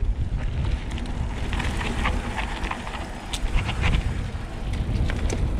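Mountain bike rolling down a dirt singletrack: a steady low wind rumble on the microphone, with scattered clicks and rattles from the bike and its tyres on the dirt.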